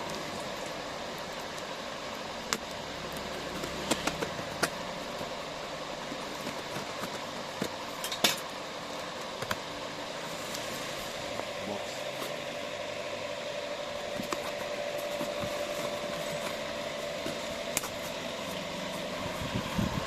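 A steady mechanical hum, like a fan or air conditioner running, with a few sharp clicks and taps scattered through it.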